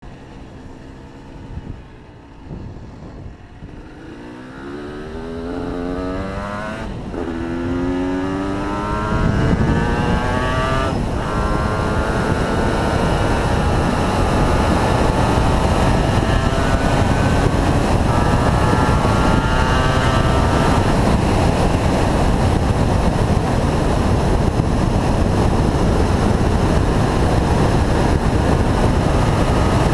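Rebuilt Yamaha TZR250 3XV two-stroke V-twin motorcycle engine pulling away and accelerating up through the gears, its pitch rising in several pulls with a shift between each, then holding a steady cruise. From about ten seconds in, wind rush over the microphone becomes the loudest sound.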